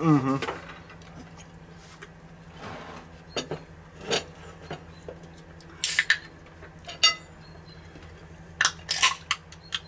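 Knife and fork clinking and scraping on china plates while eating, with scattered sharp clinks and a short hiss about six seconds in.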